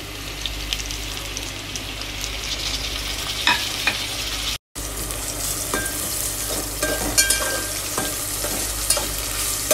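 Sliced onions, chopped tomatoes and green chillies frying in hot oil in a metal pot, sizzling steadily while a slotted metal spatula stirs them, with scattered clicks and scrapes of the spatula against the pot. The sound cuts out for an instant a little under halfway.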